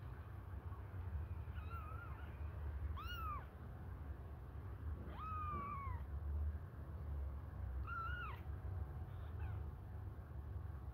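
Very young kitten mewing for food: four or five thin, high mews a couple of seconds apart, one longer call near the middle falling in pitch. A steady low rumble runs beneath.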